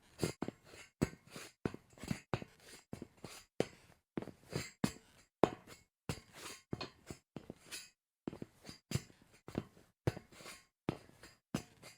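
Sneaker footsteps on a metal grate: a run of short, sudden steps, about two or three a second, with two brief pauses.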